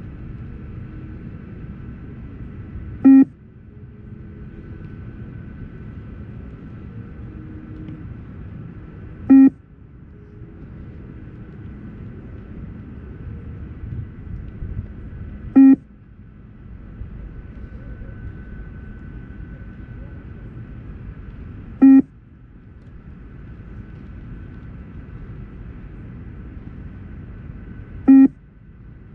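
Beep test (multistage shuttle-run) recording sounding its short beep five times, evenly about six seconds apart, each beep marking the end of a 20 m shuttle. A steady low rumble runs under the beeps.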